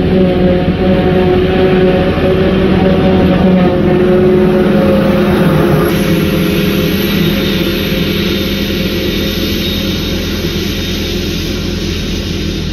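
Claas Jaguar 960 self-propelled forage harvester running under load while chopping grass: a loud, steady engine and chopper drone with a pitched hum. It eases off slowly after about six seconds as the machine moves away.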